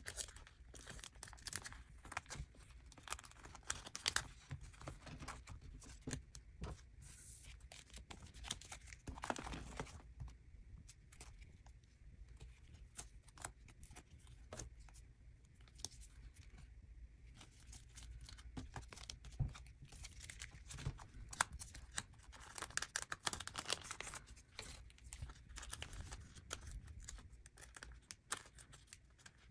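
Thin plastic card sleeves crinkling and rustling as photocards are slid in and out of them and handled, with many small clicks and taps. The rustling swells about nine seconds in and again a little past twenty seconds.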